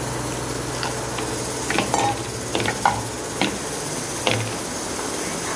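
Hands mixing semolina and maida dough in a stainless steel bowl: scattered light clicks and scrapes against the steel, over a steady hiss.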